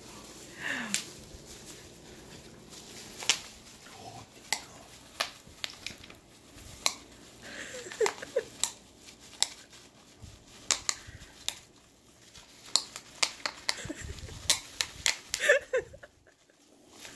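Brittany spaniel biting and chewing bubble wrap, popping the bubbles in sharp, irregular pops over the crinkle of the plastic.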